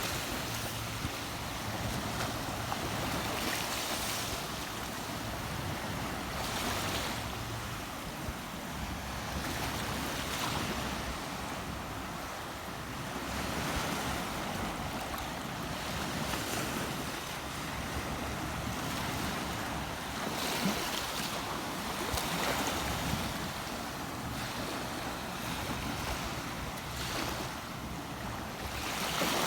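Rushing, washing water with wind buffeting the microphone. The rush swells and eases every few seconds.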